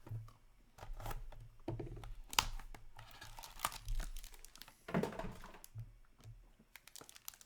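Trading card pack wrapper being torn open and crinkled, with the cards rustling and clicking as they are handled, in irregular bursts.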